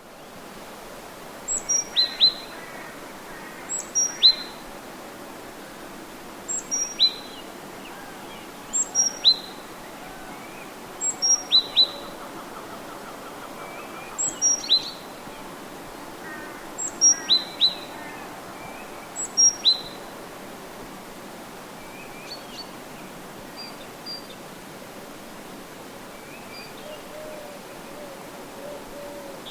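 A songbird singing a short phrase of about three quick, high, falling notes, repeated eight times roughly every two and a half seconds, then a few faint high calls near the end, over a steady background hiss.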